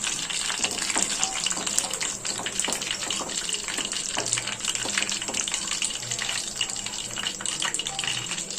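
Hot cooking oil sizzling and crackling in a frying pan, a steady hiss with quick pops throughout.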